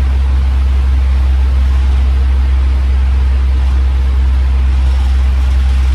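Steady fan ambience: a loud, unchanging deep hum under an even hiss.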